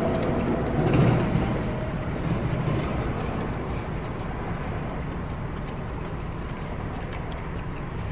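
Steady low rumble of a car's engine idling, heard from inside the cabin, with a few faint clicks.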